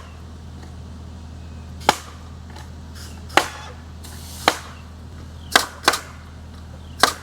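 Nail gun driving nails into the barn trusses: six sharp shots at irregular intervals, two of them in quick succession about six seconds in, over a steady low hum.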